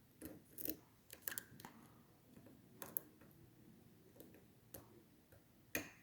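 Faint, irregular clicks and light scrapes of lock picks and a tension tool working the pins of a Bilock-clone challenge lock.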